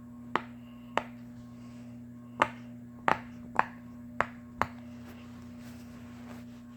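A series of about seven short, sharp clicks at uneven intervals, two of them in quick succession about three seconds in, over a steady low hum.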